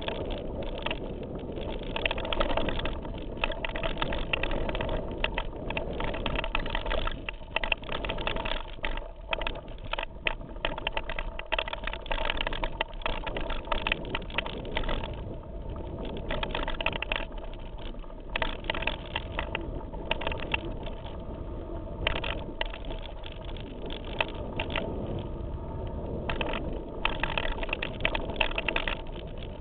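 Mountain bike ridden fast over rough forest singletrack: a continuous rush of tyre and wind noise, with frequent irregular rattles and knocks as the bike jolts over the rocky ground.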